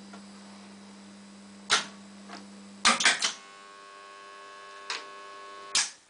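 Steady low mains hum from an energised control panel, broken by several sharp clicks of toggle switches being flipped. After a cluster of clicks about three seconds in, the hum cuts off as the panel's mains is switched off, leaving a fainter, higher steady tone.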